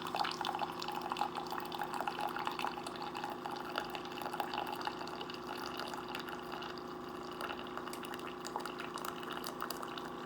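Keurig K-Cafe single-serve brewer dispensing a 12-ounce coffee into a cup: a steady pump hum under the trickle and patter of the coffee stream filling the cup.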